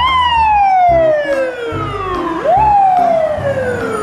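Siren of a New York fire department ladder truck wailing: each cycle rises quickly and then slides down slowly over about two and a half seconds, with a fresh rise about two and a half seconds in.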